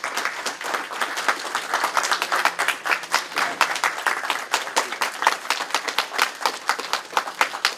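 A small group of people applauding, a steady run of many quick, distinct hand claps.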